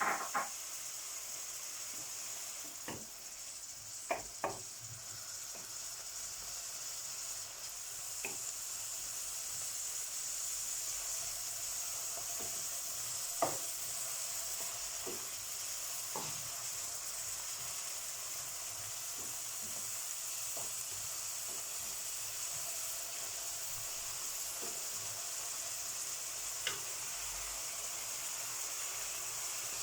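Chopped vegetables sizzling steadily in hot olive oil in a paella pan as they are stirred, with scattered sharp clicks of a utensil against the pan.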